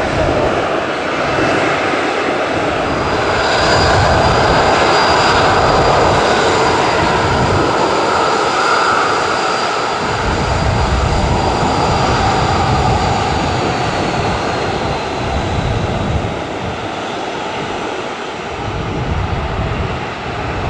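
Boeing 737-800's CFM56-7B jet engines at low taxi power as the airliner taxis past: a steady rush of engine noise with a high whine that slowly sinks in pitch, over a low rumble that swells and fades.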